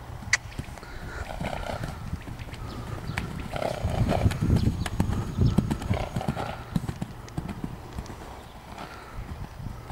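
A loose horse's hooves trotting and cantering on gravel arena footing: an irregular run of hoofbeats, louder in the middle.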